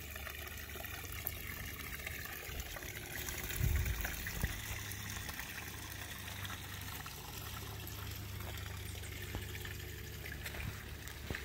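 Shallow creek water trickling steadily, with a brief low rumble about four seconds in.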